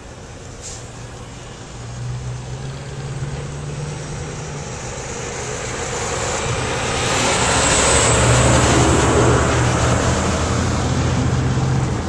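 Heavy truck's diesel engine running close alongside over road and wind noise, growing louder about halfway through and loudest near the end.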